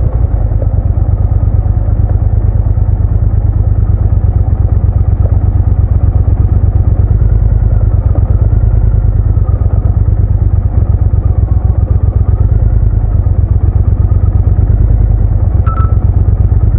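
Motorcycle engine running under way with a steady low, rapid beat of firing pulses. A single sharp click near the end.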